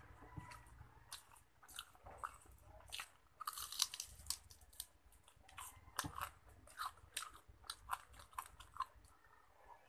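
Close-up crunching and chewing of crispy fried pork, loudest in a burst of crunches about four seconds in, then more crunchy chewing.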